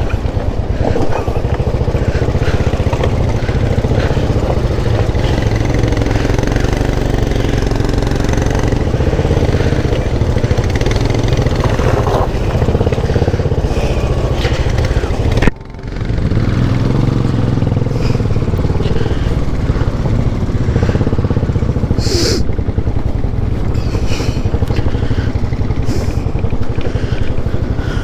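Royal Enfield motorcycle engine running steadily as the bike is ridden slowly over a rough, rocky track. The sound drops out for a moment just past halfway.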